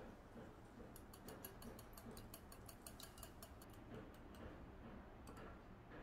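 Wire whisk beating two eggs in a small glass bowl, its tines clicking against the glass in a rapid, even rhythm of about six clicks a second. The clicking starts about a second in and stops shortly before the end.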